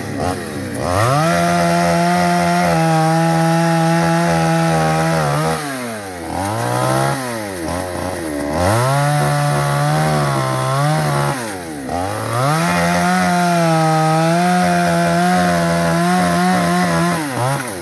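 Two-stroke chainsaw running at high revs as it cuts through wood, in three long runs. The engine note drops sharply and climbs back up twice, about six and twelve seconds in.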